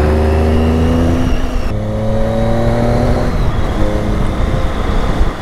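Triumph Tiger 800's three-cylinder engine accelerating hard, its pitch climbing through the revs. The note drops at a gear change about a second and a half in, climbs again, then drops at another shift a little past three seconds and runs on at a steadier pitch.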